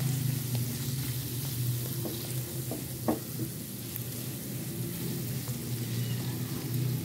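Vegetables and flour sizzling in oil in a non-stick frying pan as a silicone spatula stirs them, with a few light scrapes and taps of the spatula about two to three seconds in: the flour being fried with the vegetables to cook out its raw taste for a white sauce. A steady low hum runs underneath.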